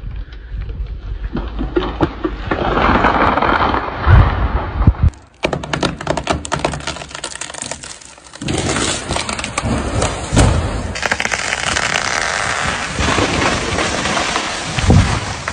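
Wood cracking and splintering, with three heavy thuds spaced through it: trees breaking and crashing to the ground.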